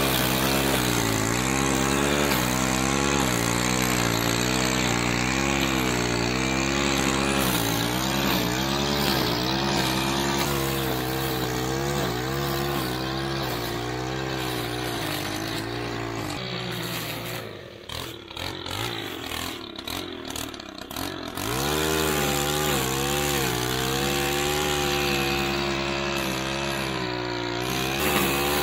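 Gas-powered string trimmer running at high throttle, cutting through thick dry grass, its engine pitch wavering as it works. About two-thirds of the way through the engine drops away for a few seconds, then comes back up to full speed.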